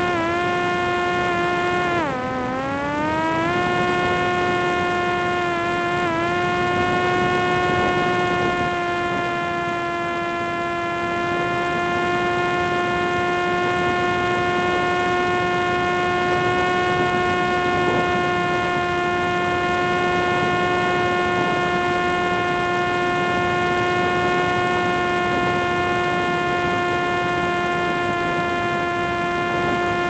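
Parrot Disco's electric motor and rear pusher propeller whining in cruise, a steady pitched drone. The pitch sags just after the start, sags deeper about two seconds in and climbs back over the next two seconds as the throttle changes, dips slightly around six seconds, then holds steady.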